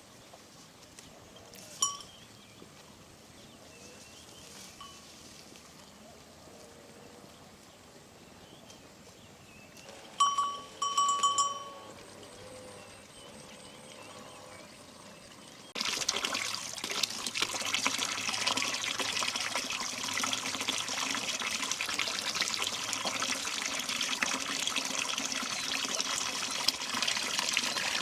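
Water running steadily, starting abruptly about sixteen seconds in after a quiet stretch broken by a few short high calls.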